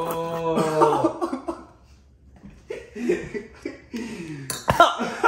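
A man coughing and spluttering from the chili burn after swallowing a shot of mixed hot sauce, habanero and lime, with a long held vocal sound in the first second.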